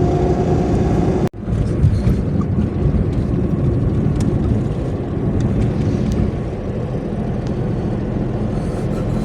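Daewoo Matiz driving at speed: steady engine and road noise heard inside the cabin. The sound drops out for an instant about a second in.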